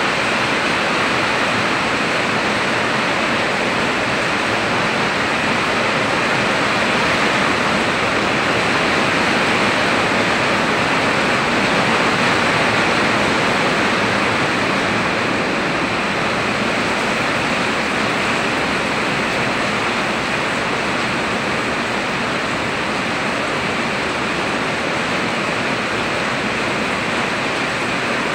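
Heavy rain falling on a roof and streaming off its edge: a steady, even hiss with no letup.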